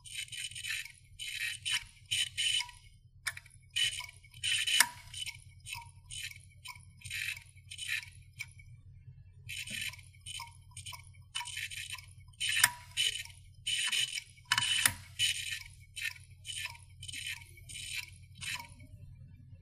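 Irregular short bursts of rattling, one or two a second, with a few sharper clicks, over a steady low hum.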